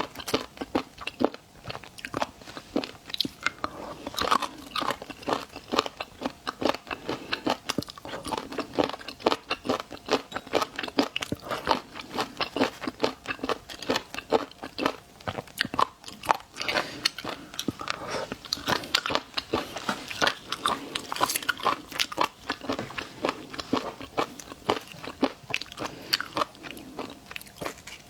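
A person biting and chewing seafood close to the microphone, with many rapid, irregular crisp crunches and wet mouth sounds.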